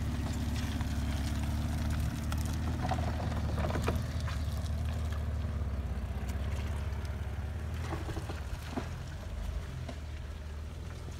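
A Jeep's engine running steadily under load as it drives through sticky clay mud, a low drone that gradually fades toward the end. A few faint clicks and knocks come through over it.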